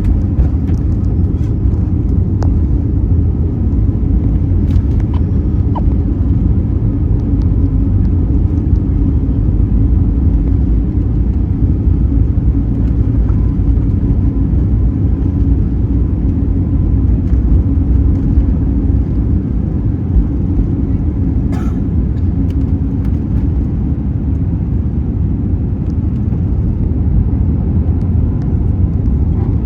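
Airliner jet engines and airflow during take-off, a loud steady low rumble with a faint hum on top and no change in pitch. A brief faint click sounds about two-thirds of the way in.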